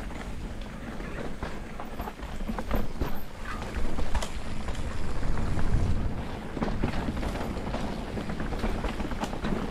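Mountain bikes descending a dirt singletrack: a steady rumble of knobbly tyres on dirt, with irregular rattles and knocks from the bikes clattering over bumps.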